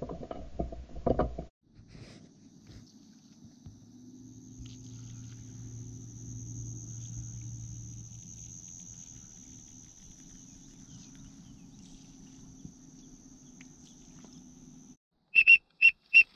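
A steady high-pitched whine over a faint low hum, outdoors. Near the end, four short sharp bird calls come in quick succession as a flock passes overhead.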